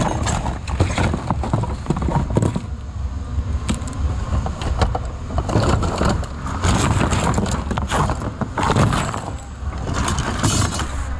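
Hands rummaging through a bin of mixed secondhand goods: plastic items, toys and hangers knocking and clattering against each other in quick irregular bursts, over a low steady rumble.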